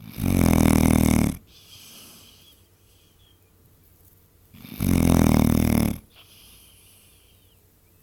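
Basset hound snoring in its sleep: two loud, low snores about four and a half seconds apart, each lasting just over a second and followed by a faint breath out.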